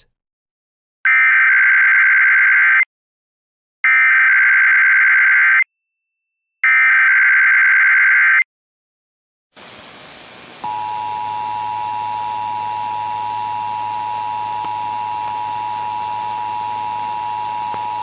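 Emergency Alert System SAME header: three bursts of screechy digital data tones, each just under two seconds long, about a second apart. After a pause and a rise of hiss, the steady two-tone EAS attention signal (853 and 960 Hz) sounds over a low hum, opening a required monthly test.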